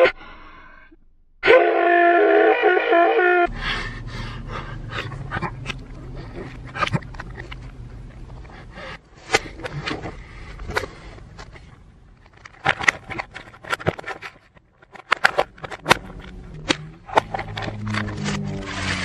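A man's loud drawn-out yell, cut off and then heard again briefly. After that comes a long run of crackling and clicking from a clear plastic salad clamshell being handled and opened, over a low steady hum.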